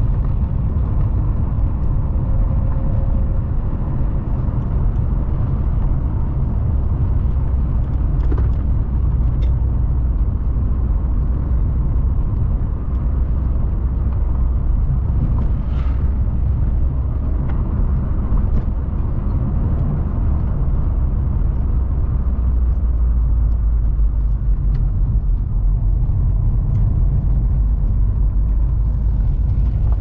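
Steady low rumble of a motor vehicle on the move, with a few faint clicks or rattles.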